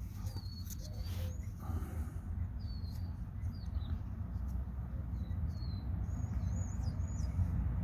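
Small birds chirping in short, quick calls that dip in pitch, more often near the end, over a steady low rumble.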